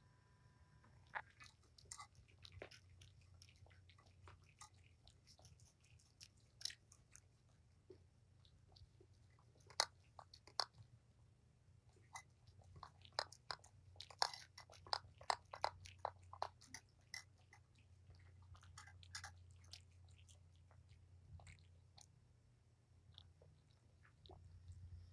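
A cat crunching dry food: irregular crisp crunches and bites, thickest in the middle, over a faint low hum.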